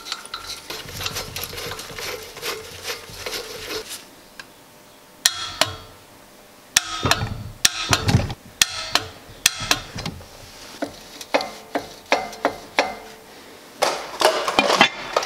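Steel parts of a Mercedes G-wagon axle differential clinking and knocking as it is reassembled, with a run of sharp clicks from a wrench on the ring gear bolts in the middle. Near the end, a short scraping rattle as the steel differential cover is fitted onto the housing.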